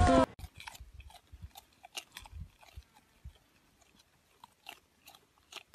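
A brief burst of music and voice that cuts off right at the start, then faint, irregular soft clicks and crunches.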